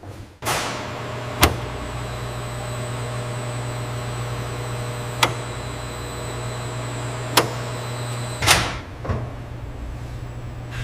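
Factory machinery running with a steady hum, marked by three sharp clicks, with a whoosh as it starts and another near the end.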